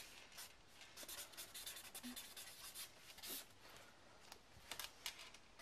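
Black marker writing on spiral-notebook paper: a run of faint, irregular scratching pen strokes.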